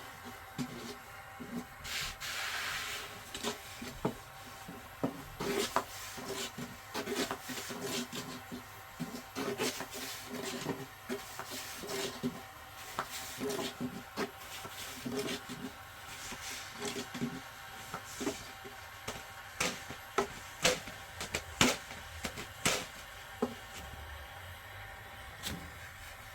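Irregular light knocks, taps and rubbing, with a short hiss about two seconds in and a few sharper knocks near the end.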